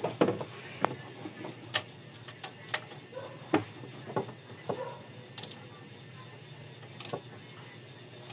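Irregular light metallic clicks and taps on the engine while its crankshaft is turned over by hand to check the valve clearance.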